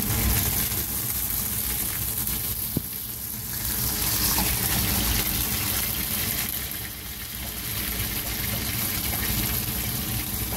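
Breadcrumbed fish fillets sizzling steadily in a frying pan, with a single light click about three seconds in.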